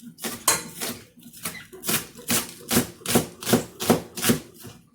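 Kitchen knife chopping a scallion on a cutting board: about a dozen quick chops, two to three a second.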